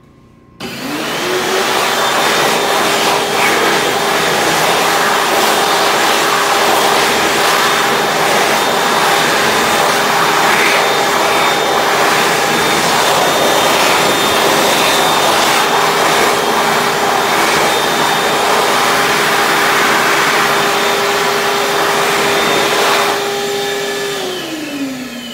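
Excel Xlerator XL-SB hand dryer switching on as a hand goes under its sensor, spinning up within a second to a loud, steady rush of air with a high motor whine. About 23 seconds in it cuts off, and the whine falls in pitch as the motor spins down.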